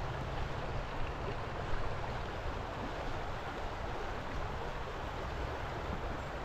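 River water rushing steadily around a wading angler, with a brief light knock a little under two seconds in.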